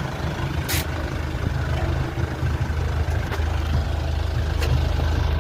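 Motor vehicle engine running steadily with a low hum, and a single sharp click about a second in.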